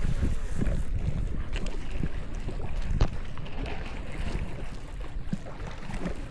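Wind buffeting the microphone over water sounds around a fishing kayak, with one sharp knock about three seconds in.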